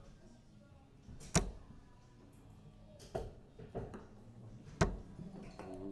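Three steel-tip darts thudding one after another into a Winmau Blade 6 bristle dartboard, roughly a second and a half apart.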